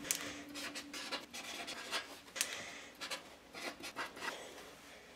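Marker pen writing on a strip of paper: a run of short, irregular scratchy strokes as letters are drawn.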